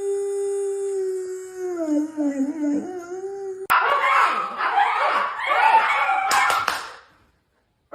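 Dog howling: one long steady note that wavers and dips in pitch about halfway through, then cuts off abruptly. After it come a few seconds of rougher, broken sound that end just before a short silence.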